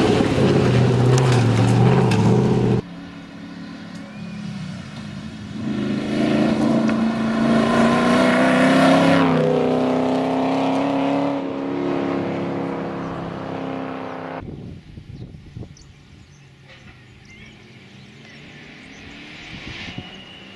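Triumph TR7 V8 rally car's V8 engine at full throttle as the car passes close by; the sound cuts off suddenly about three seconds in. The engine is then heard from farther off, its note rising steadily as it pulls hard through the revs for several seconds, and near the end it is fainter as the car approaches from a distance.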